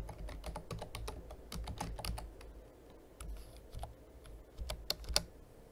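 Typing on a computer keyboard: an irregular run of key clicks as a web address is typed.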